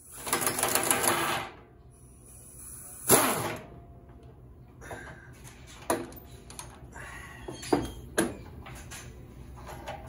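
Socket ratchet clicking as it turns the nut on the washer tub's big hose-clamp bolt: a fast run of clicks for about the first second and a half, another short burst about three seconds in, then a few single clicks and knocks of the tool on metal.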